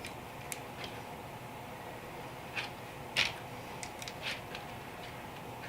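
Small plastic LEGO pieces clicking against each other and being pressed together during building: a handful of short, sharp clicks, the loudest about three seconds in, over a steady low hum.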